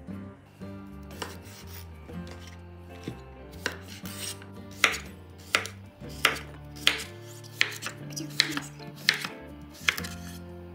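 A kitchen knife slicing a cucumber into rounds on a wooden cutting board: a steady run of about ten crisp chops, one roughly every two-thirds of a second, beginning about four seconds in.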